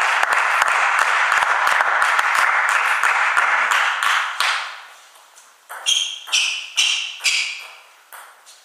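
Spectators applauding with many hand claps, fading out after about four seconds. Then a celluloid table tennis ball bounces four times, each a ringing ping about half a second apart.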